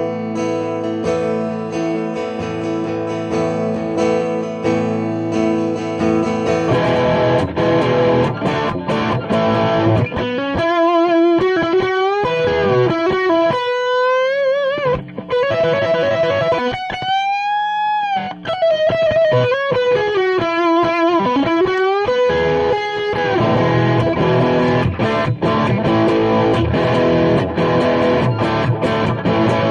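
Parker Nitefly electric guitar played through an Orange Dual Terror amp. It opens with ringing chords. About seven seconds in the sound changes, and the guitar plays a single-note lead full of string bends and vibrato before going back to strummed chords near the end.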